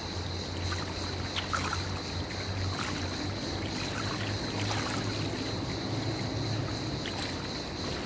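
Swimming-pool water lapping and trickling close by, with small scattered splashes as a swimmer does breaststroke, over a steady low hum.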